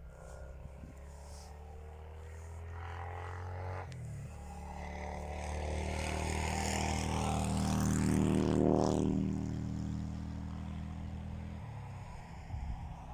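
An engine-driven vehicle approaching and passing by, growing louder to a peak about nine seconds in, where its pitch drops as it goes past, then fading. A steady low hum under it cuts off suddenly near the end.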